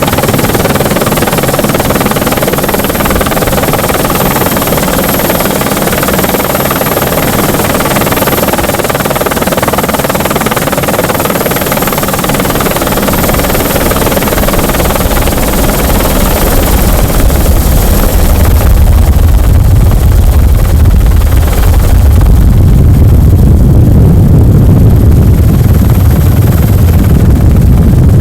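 Helicopter engine and rotor noise heard from inside the cabin, loud and continuous. Late in the stretch it turns deeper and slightly louder as the high hiss fades.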